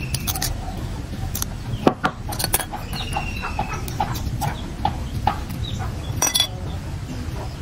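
Sharp clicks and scrapes of pliers and a metal blade on an AA battery as its outer wrapper and casing are pried off, the loudest clicks about two seconds in and about six seconds in. Short repeated animal calls sound in the background, in a quick run about four to five seconds in.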